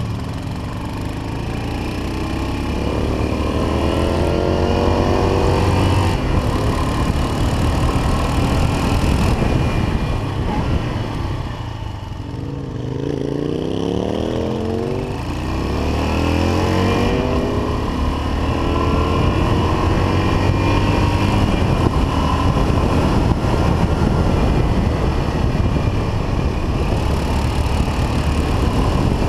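Yamaha XT500's single-cylinder four-stroke engine under way, its pitch rising again and again as it accelerates through the gears, easing off about twelve seconds in and then pulling up again.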